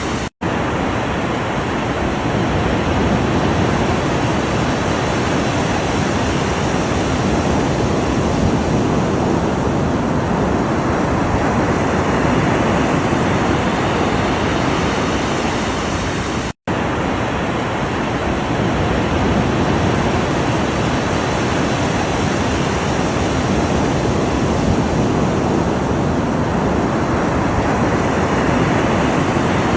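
Ocean waves: a steady rush of surf that swells and eases slowly, broken twice by a split-second dropout to silence.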